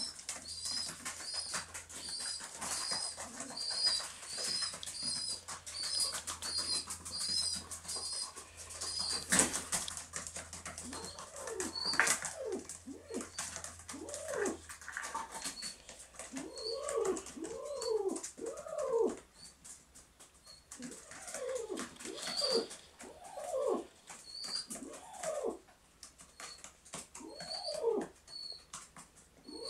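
Baby pigeon (squeaker) begging for food with rapid high squeaks, about two a second for the first nine seconds, then sparser, with bursts of wing flapping. From about eleven seconds on, a pigeon coos in a run of rising-and-falling calls.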